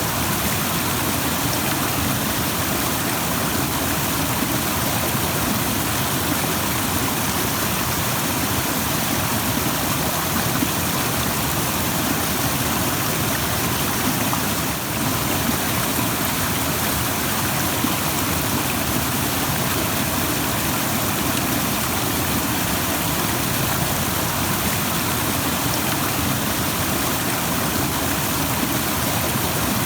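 Rushing stream water, a steady even rush.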